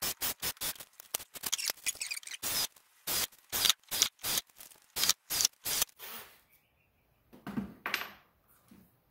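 Cordless drill boring into a masonry board in short bursts, about three a second, stopping about six seconds in; a knock near the end.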